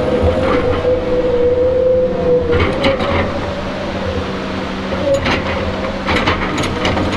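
Tigercat 234B knuckleboom log loader running under work: a steady diesel drone with a whine that wavers slightly, and a few sharp knocks.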